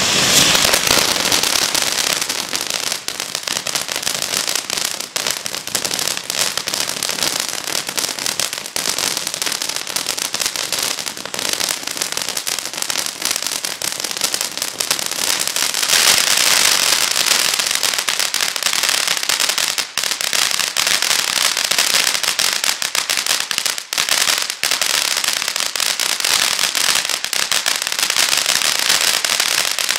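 Ground firework fountain, a 15-step multi-effect fountain, spraying sparks with a continuous hiss and dense crackling. The hiss swells a little past halfway.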